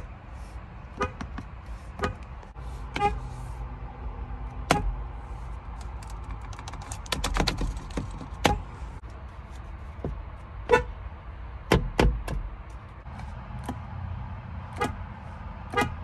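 Car horns of a Lexus and a Nissan given quick taps: about a dozen very short beeps at irregular intervals, with a rapid cluster of taps a little before the middle.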